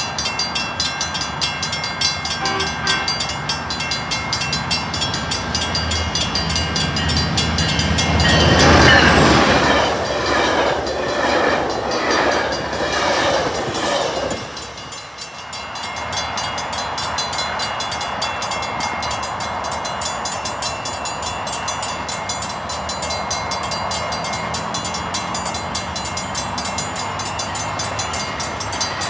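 Train passing over a grade crossing with wheels clattering on the rails. Its horn sounds for several seconds starting about eight seconds in, the loudest part.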